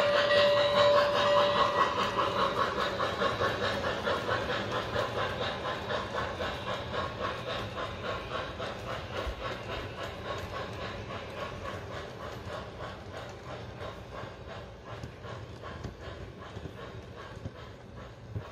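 O gauge model freight train rolling past on three-rail track, its wheels clicking in a fast, steady rhythm over the rail joints and growing steadily fainter as it moves away. A held tone stops about a second and a half in.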